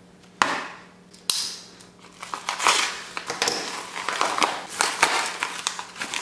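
Two sharp knocks on the countertop in the first second and a half, then a paper envelope being torn open by hand, its paper ripping, rustling and crinkling.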